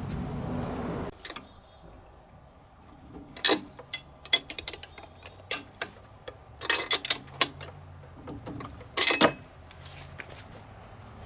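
Ratchet wrench with a spark plug socket clicking, and metal tools clinking against an outboard engine's cylinder head as the spark plugs are worked, in scattered clusters of sharp clicks. A steady low rumble cuts off about a second in.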